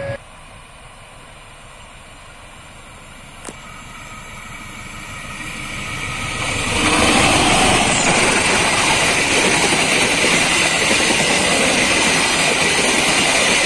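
Passenger train hauled by a CC201 diesel-electric locomotive approaching and passing close by: the sound builds over several seconds, then the locomotive and a long line of carriages roll past loud and steady on the rails.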